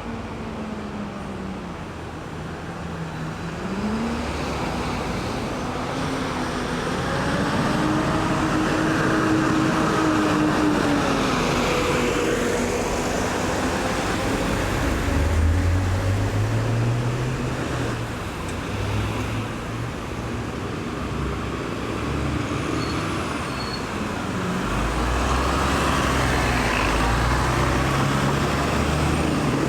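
Road traffic going around a roundabout: cars and heavier vehicles passing over a steady tyre hiss, their engines rising and falling in pitch. A deeper engine rumble comes in about halfway through and again near the end.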